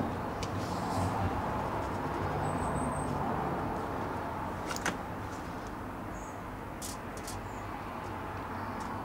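Steady background rumble and hiss with a few faint clicks.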